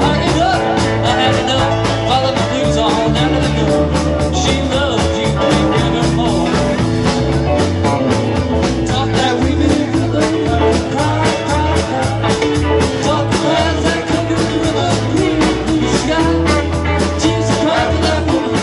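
A rock band playing, with a steady drum beat, bass and guitars.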